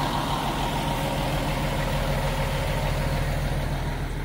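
Fire engine's diesel engine idling: a steady low hum with a faint steady whine above it.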